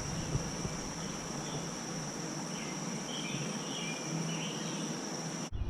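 Insects trilling in one steady high-pitched drone, with a few faint bird chirps over it; the sound breaks off abruptly for a moment near the end.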